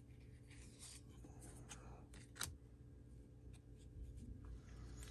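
Faint rustle and scrape of trading cards sliding against each other as the front card is moved to the back of a stack, with one sharper tick about two and a half seconds in.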